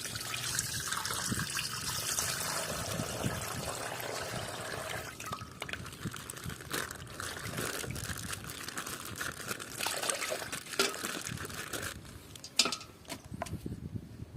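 Plastic packaging rustling and crinkling, with scattered small clicks, as a toy is handled and unwrapped.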